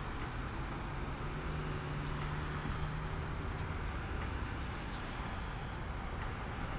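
A steady low rumble with hiss, and a faint hum for about two seconds in the middle.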